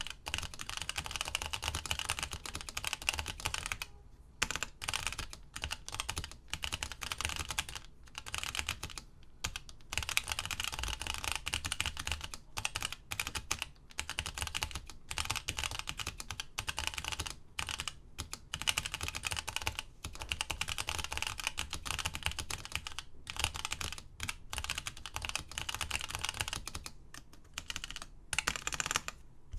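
Continuous fast typing on a Toshiba J-3100 GT keyboard with Alps SKFM key switches: dense runs of key clicks broken by short pauses.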